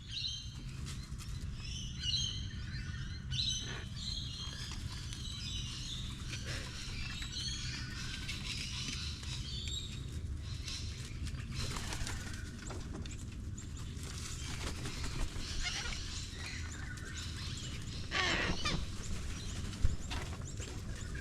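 Small birds chirping and twittering in quick repeated bursts over a steady low rumble, with one sharp knock near the end.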